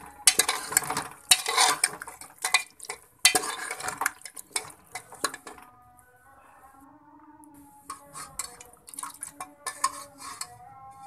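Metal spatula scraping and clattering against the inside of a metal pressure cooker as okra and mutton are stir-fried in oil to dry off the water. The strokes come thick and fast at first, ease off for a couple of seconds past the middle, then pick up again.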